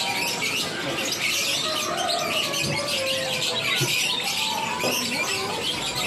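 Dense, steady chorus of many caged songbirds chirping and twittering at once, high-pitched and overlapping.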